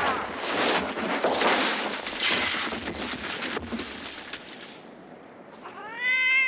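A wooden gallows collapsing: crashing, falling timber and a rumble in several surges that slowly die away. Near the end a short, loud, high call rises in pitch and then holds.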